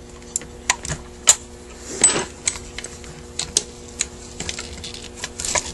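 Irregular light metallic clicks and taps, about a dozen over a few seconds, from hands handling the cast body and small parts of an electronic Rochester Quadrajet carburetor during teardown. A faint steady hum runs underneath.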